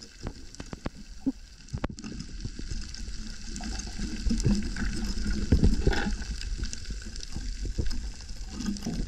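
Underwater sound on a reef: irregular clicks and crackles over a low rumble of moving water.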